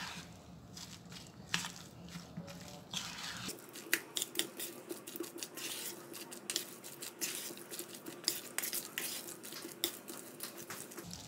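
Metal spoon stirring thick corn-fritter batter in a stainless steel bowl, with irregular wet clicks and scrapes of the spoon against the bowl.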